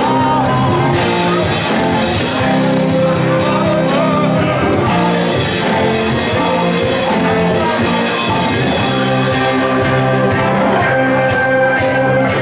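Live rock band playing loudly: electric guitars over drums, with a voice singing.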